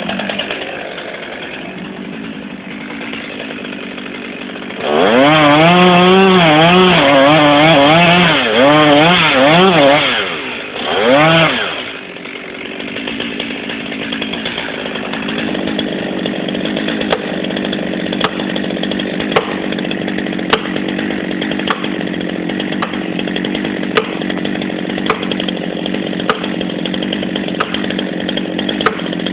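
Chainsaw running. About five seconds in it revs hard for around five seconds with the pitch wavering up and down as it cuts, revs again briefly, then settles into steadier, lower running with light clicks.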